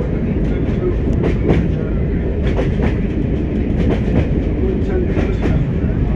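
Class 104 diesel multiple unit running along the line, heard from the driver's cab: a steady low rumble of the diesel engine and running gear, with frequent irregular clicks and knocks from the wheels on the track.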